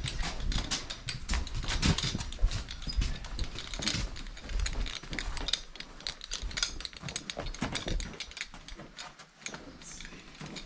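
Footsteps and scuffing of boots on a concrete and straw barn floor, with rustling of clothing against a body-worn camera: irregular clicks and scrapes over a low rumble, thinning out and getting quieter in the last few seconds.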